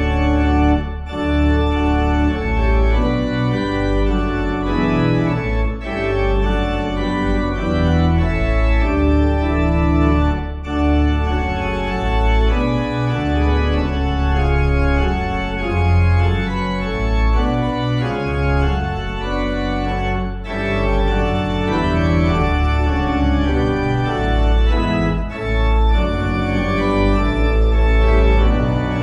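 Organ playing a hymn tune in held chords, phrase after phrase, with brief breaks between phrases.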